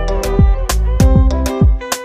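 Music with a steady beat: a deep kick drum that drops in pitch, hitting just under twice a second, under a pitched melody.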